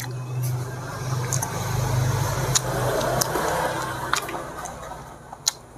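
A motor vehicle passing by, its engine hum and noise swelling to a peak about two seconds in and fading away. Mixed with it, close-up chewing on goat-head curry, with a few sharp clicks from biting and mouth sounds.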